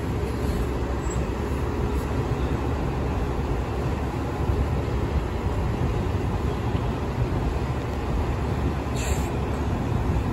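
City transit bus running as it turns slowly past at close range: a steady low engine rumble, with a brief high squeak about nine seconds in.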